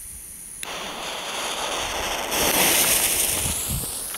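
Weco Flitze Feuerstein ground fountain firework: a thin high fizz from the fuse, then about half a second in the fountain starts spraying sparks with a loud rushing hiss that swells and then fades. It burns through quickly, which the owner regrets.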